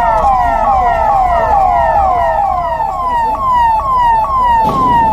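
Electronic vehicle siren sounding in quick falling sweeps, about two a second; a second siren overlaps it for the first couple of seconds.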